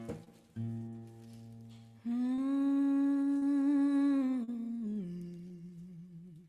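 Acoustic guitar with a capo strummed twice, the chord ringing, then a woman hums one long held note about two seconds in, stepping down to a lower note near the end as it fades.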